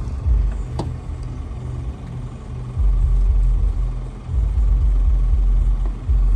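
Deep bass from a newly installed subwoofer behind the seat of a Smart car, coming in long sustained pulses that start and stop, with one sharp click just under a second in.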